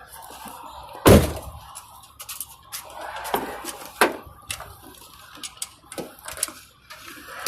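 A series of knocks and clanks from work on the truck, with one heavy thud about a second in and lighter knocks following at irregular intervals.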